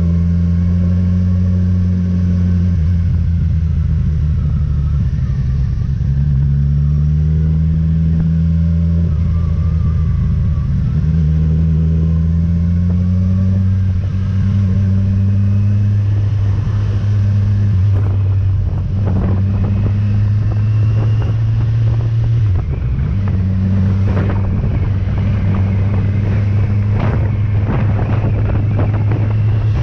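Motorcycle engine running under way, its revs rising and falling repeatedly with gear changes, over steady wind and road noise. In the second half, a series of short sharp knocks cuts through.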